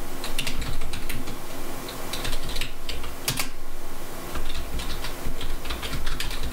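Typing on a computer keyboard: a run of irregular key clicks as a short command is entered, with one louder keystroke a little past three seconds in.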